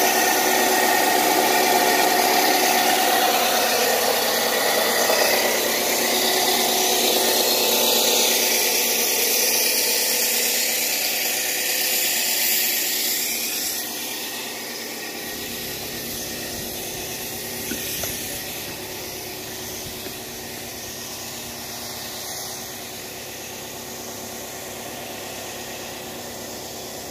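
Rail-mounted rock-cutting saw running steadily, a motor drone with several held tones. It drops noticeably in level about halfway through and carries on more faintly.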